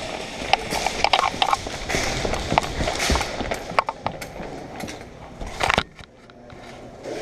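Clattering of airsoft gear being handled: a string of sharp clicks and knocks, with one louder knock near the end followed by a quieter stretch.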